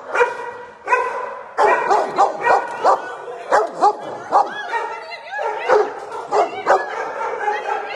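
Dogs barking over and over, a few short barks every second, with overlapping barks of different pitches. They are sparser for the first second or so, then come thick and fast.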